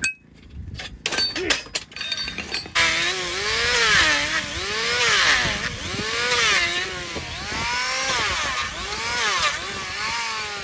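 A few clicks and knocks of hand tools, then, about three seconds in, an electric hoof trimmer starts up and shaves a mule's overgrown hoof horn. Its motor note dips and recovers again and again as the blade bites into the hoof in repeated passes, with a steady hiss of cutting.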